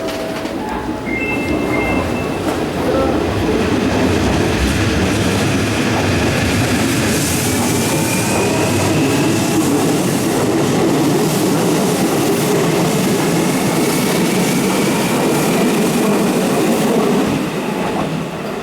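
Electric commuter train running past on the rails, a steady loud rumble with wheel clatter, building over the first couple of seconds and easing off near the end. A faint whine rises slowly in pitch through the middle.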